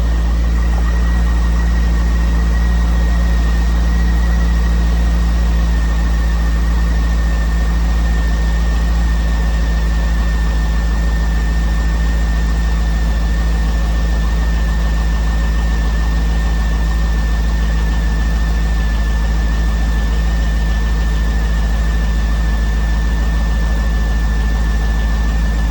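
Car engine idling steadily, with a thin steady high whine over the low hum. The owner is unsure whether the noise is lifter tick or piston slap.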